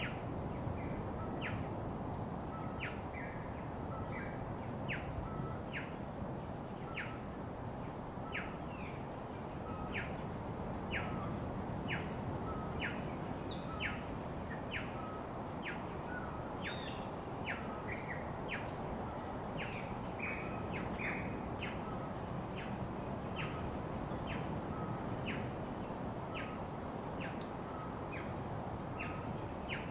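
A bird calling over and over, a short note that sweeps sharply upward, repeated roughly once or twice a second, over a steady low rushing background and a constant high-pitched hum.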